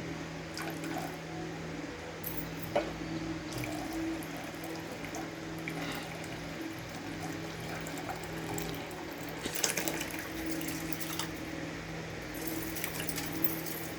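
Steady rush of water running from a kitchen tap, with a few light clinks of utensils and a low steady hum underneath.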